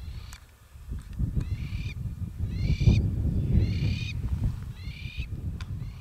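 An animal calling: a short, nasal, pitched call repeated about once a second, four times clearly, with fainter calls at the start and end. A low rumble runs beneath, loudest in the middle.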